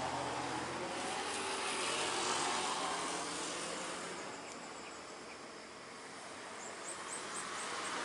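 Passing road traffic: the tyre and engine noise of a vehicle fades away over the first half, then the next vehicle approaches. A few short high chirps come near the end.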